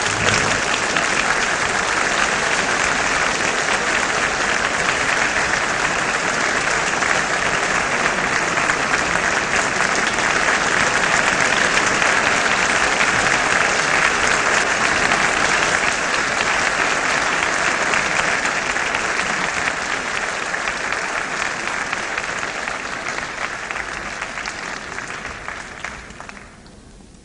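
Audience applauding, even and sustained, then thinning out and stopping about a second before the end.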